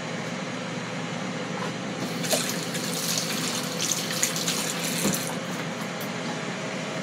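Kitchen faucet running into the sink for about three seconds in the middle, water splashing, over a steady low background hum.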